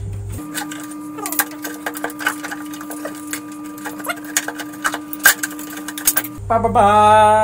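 Rapid clicks, taps and rattles of tools and motorcycle parts being handled, over a steady hum. Near the end a short, louder pitched tone slides down and then holds.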